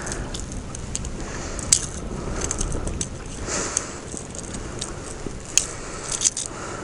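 Scattered sharp clicks and rustling from handling a freshly landed smallmouth bass and the jerkbait it swallowed, as the hooks are worked out of its mouth by hand.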